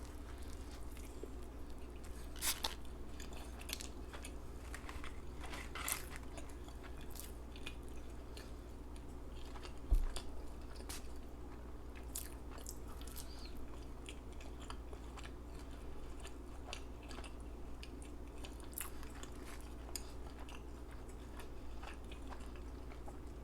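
Close-miked chewing of McDonald's fast food, with scattered wet clicks and crunchy bites over a steady low hum. One louder thump about ten seconds in.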